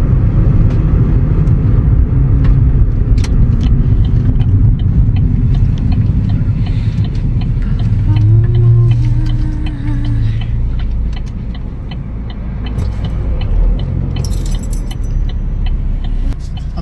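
Inside a moving car: a steady low rumble of engine and road noise, with light rattling clicks throughout. It gets quieter about two-thirds of the way through.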